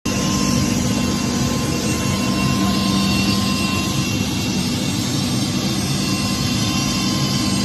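Black Hawk helicopter's twin turbine engines and rotor running steadily: a loud, even drone with a thin steady whine over it.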